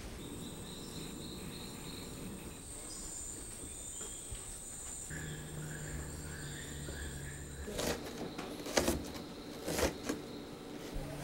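Tropical forest ambience dominated by a steady, high-pitched drone of insects, with a low hum joining about halfway. In the last few seconds come several sharp knocks of a knife chopping on a wooden cutting board.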